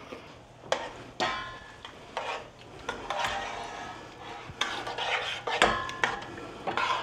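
Metal spoon stirring a wet chicken-and-chili mixture in a stainless steel pot. It scrapes and clinks against the pot's sides and bottom in repeated strokes, with short metallic rings.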